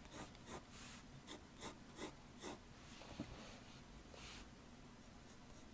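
Faint scratching of a pencil drawing on paper: a run of short quick strokes over the first two and a half seconds, then a few longer, softer strokes.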